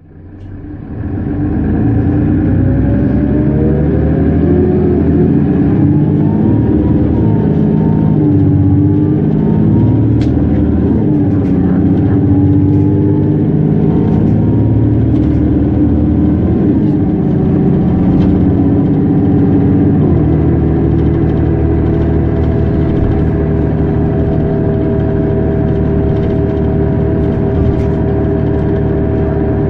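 Mercedes-Benz Citaro G articulated bus's diesel engine and ZF 6HP 502C automatic gearbox accelerating under full-throttle kickdown. The drivetrain whine rises in pitch and steps through several gear changes, then settles to a steady drone about two-thirds of the way through.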